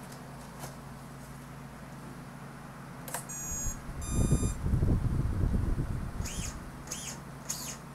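A click, then two short electronic beeps about a second apart as the flying wing's 20 A ESC powers up on its newly connected battery. These are followed by a louder low rumble and a run of short high chirps, two or three a second.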